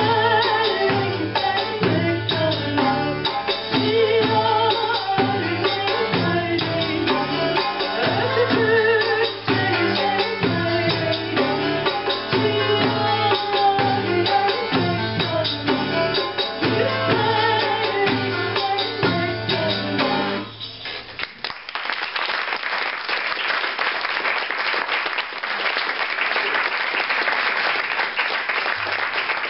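Small folk band playing a Cypriot song live: a woman singing over darbuka, a plucked lute and bass guitar, with a steady beat. The music stops about two-thirds of the way through and the audience applauds.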